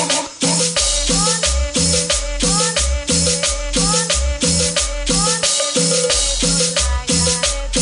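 Cumbia music playing at full volume with a steady beat: thudding bass notes, a shaken rattle keeping time, and short rising notes that recur every second or so.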